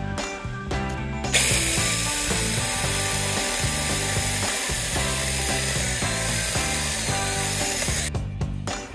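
Cordless mini chainsaw running on a Makita-type battery, its chain cutting into a tree's root wood; it starts about a second and a half in and stops suddenly near the end. Background music plays underneath.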